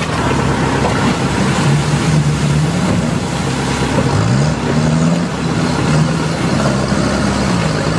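Sherp ATV's small diesel engine running under load as the machine drives over rough ground, with a rushing noise throughout. The revs climb sharply about four seconds in, settle, then dip and pick up again near the end.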